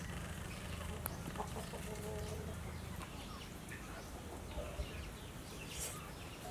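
Chickens clucking faintly, with a couple of short calls about two seconds in, over a steady low hum.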